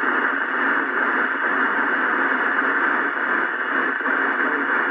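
Alba 40-channel CB radio on channel 19 FM putting out loud, steady static hiss through its speaker: the channel is open with no readable signal coming through.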